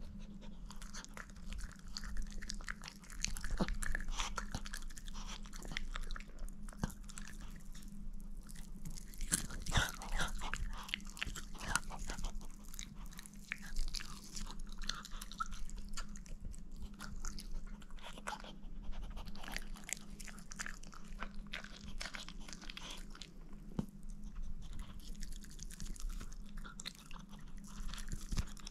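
A chihuahua chewing and crunching on a piece of cooked chicken, a long run of irregular wet crunches and clicks. A low steady hum sits underneath.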